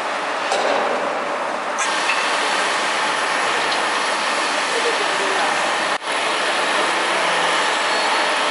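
Hydraulic guillotine shearing machine running: a steady mechanical noise with no distinct cutting stroke, briefly dropping out about six seconds in.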